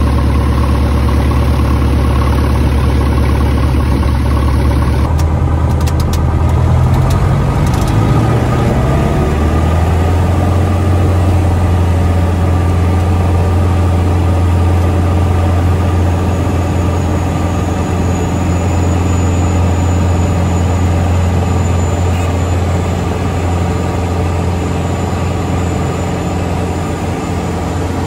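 Grob 115 light aircraft's piston engine and propeller, running at low power at first, then throttled up over a few seconds starting about five seconds in. It then runs steadily at full power through the takeoff roll and climb, heard from inside the cockpit.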